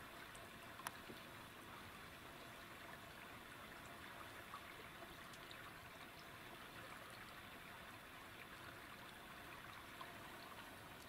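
Near silence: a faint, even outdoor hiss, with one sharp tick about a second in.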